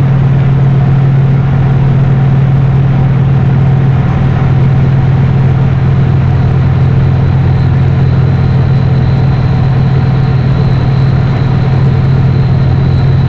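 Diesel engine of a Volkswagen 17-210 city bus running with a loud, steady low drone, heard from inside the bus cabin. A faint high whine comes in about eight seconds in.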